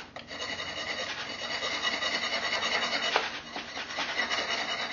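A piece of steel rebar used as a rasp, its cut burr and ribs scraping and grinding away soft white firebrick to file a round hole to size. A short sharper tick about three seconds in.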